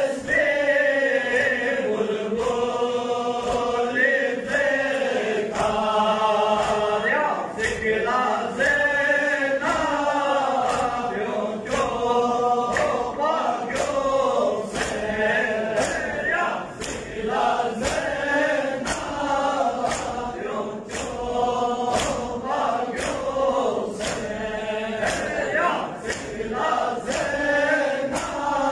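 Men chanting a Balti noha, a Shia mourning lament, in unison. The chant runs over a steady beat of sharp slaps, a little more than one a second, from chest-beating (matam).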